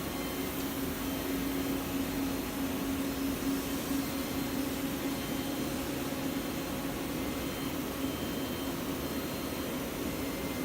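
Wire EDM machine running: a steady machine hum with a constant low tone over an even hiss.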